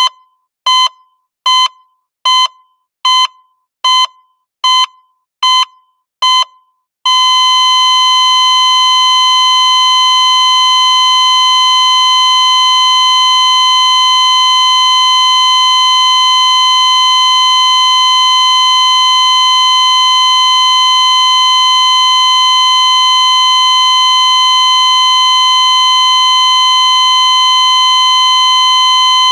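Heart rate monitor beeping: about nine short, even beeps a little under a second apart, like a steady pulse. After about seven seconds the beeps give way to one unbroken steady tone, the flatline that signals the heart has stopped.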